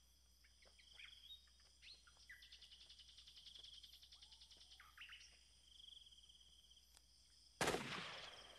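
Faint night-time wetland ambience of chirping birds and insects, with a rapid pulsing trill in the middle. A sudden loud noise near the end fades out over about a second.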